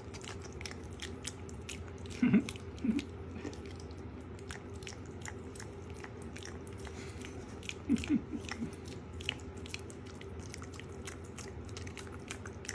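Piglet chewing banana eaten out of a hand: a rapid run of small mouth clicks, with a few short low vocal sounds about two seconds in and again around eight seconds.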